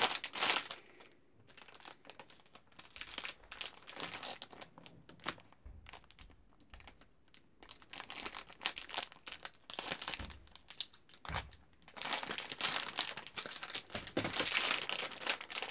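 Clear plastic bag crinkling as a plush toy is handled and cut open with scissors: irregular crackles and clicks. The crinkling turns denser and almost continuous over the last few seconds.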